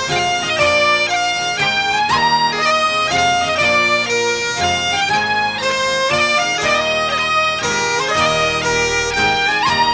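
Background music: a bagpipe tune with the melody moving note to note over steady low tones.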